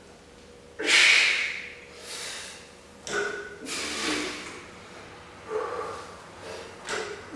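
A weightlifter breathing hard and forcefully through a heavy set of sumo deadlifts: sharp breaths and exhalations every one to two seconds, some with a short grunt. The loudest breath comes about a second in. The set is 13 reps with 152 kg taken close to failure.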